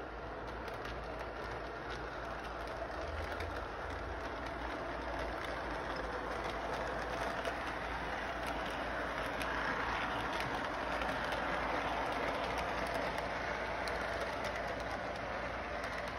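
Model electric freight train running along its track: a steady rolling noise with fine clicking from the wheels, growing louder as it passes close about ten seconds in.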